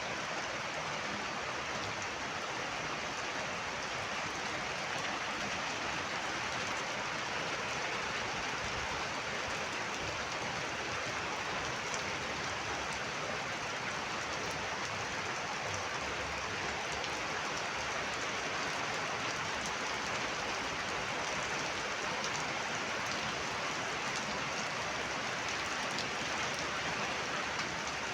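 Heavy rain falling steadily, a continuous even hiss of rain with no letup.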